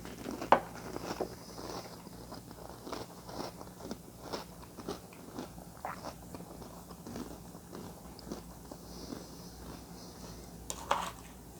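A person chewing a mouthful of crunchy Sour Patch Kids cereal in milk: irregular crunches and bites, with a sharp click about half a second in as the loudest moment.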